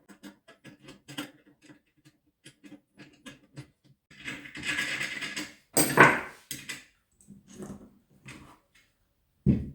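Small clicks and rattles of the pole-saw attachment's parts and installation key being handled while a screw is undone. There is a louder rustling scrape about four to six seconds in and a dull thump near the end.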